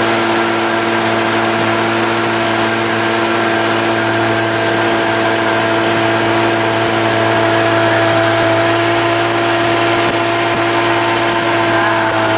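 Boat motor running at a steady, unchanging speed while the boat cruises, over a steady rushing hiss of wind and water.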